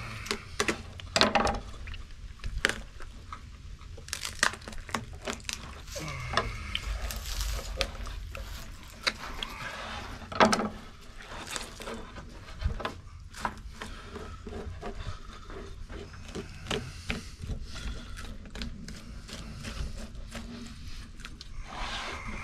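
Knife work on an armadillo carcass: irregular scrapes, clicks and soft wet sounds as the blade cuts the hard banded shell away from the meat and the carcass is handled on the table. A low steady rumble lies underneath.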